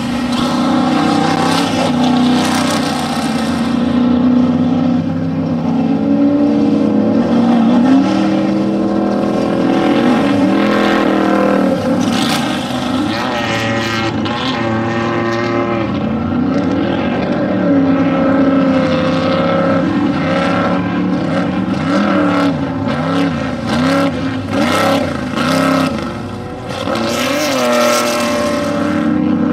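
Off-road desert race vehicle engines running hard, their pitch rising and falling again and again with the throttle.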